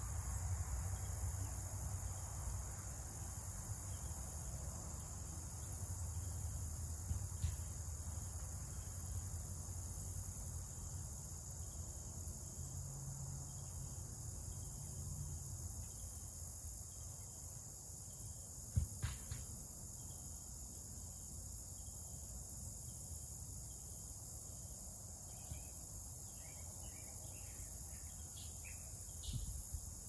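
Steady, high-pitched insect chorus, typical of crickets, over a low rumble. There is a single sharp knock about 19 seconds in and a few short, high chirps near the end.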